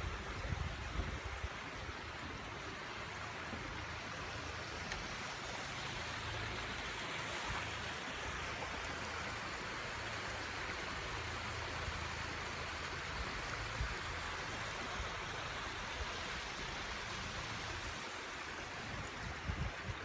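Shallow mountain stream running over rocks: a steady, even rushing of water.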